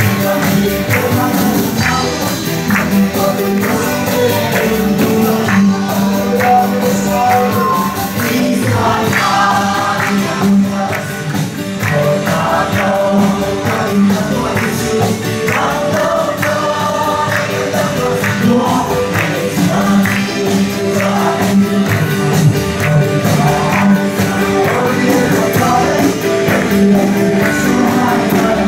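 A congregation singing a gospel worship song together, backed by amplified instruments, with a steady beat of hand-claps or tambourine.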